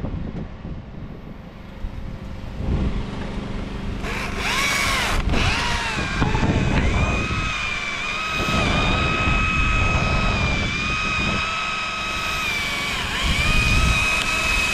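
Two-stroke chainsaw revving up about four seconds in, then held at a steady high whine at full throttle.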